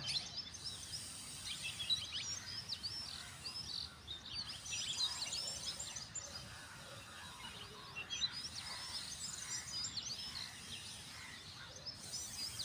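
Small birds chirping and twittering continuously in many quick, high notes, over a steady background hiss.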